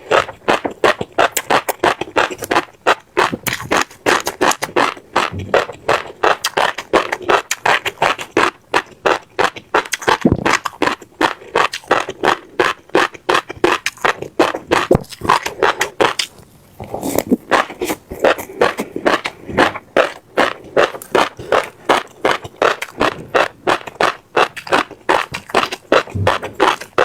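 Close-miked chewing of crunchy seeds: rapid crisp crunches, several a second, with a brief pause about sixteen seconds in.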